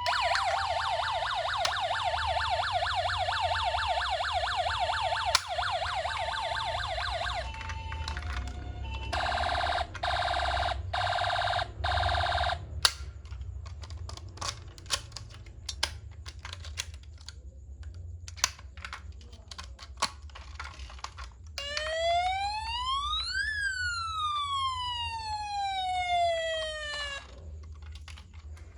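Toy ambulance minicar's electronic siren sounds: a fast warbling siren for about seven seconds, then four short beeps, a spell of sharp clicks, and near the end one slow wail that rises and then falls.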